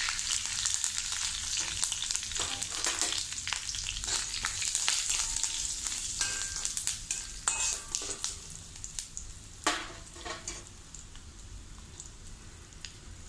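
Oil sizzling in a kadai as a tempering of chillies and asafoetida powder fries, with a perforated metal ladle scraping and tapping the pan now and then. The sizzle slowly dies down toward the end.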